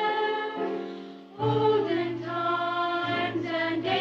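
A choir singing a slow Christmas song in long held notes. The sound fades a little over the first second, then a new phrase comes in.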